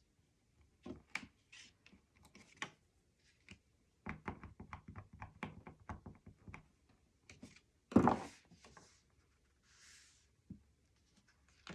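Cardstock album flaps and small closure magnets being handled: scattered light taps and clicks, a quicker run of clicks, then one sharp thunk about eight seconds in as a flap closes, followed by a short papery swish.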